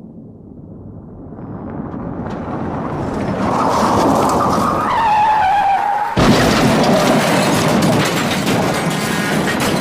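Car crash sound effect: a car approaching, growing louder, then tyres squealing from about three and a half seconds in. About six seconds in comes a sudden impact, followed by a long noisy clatter of the wreck.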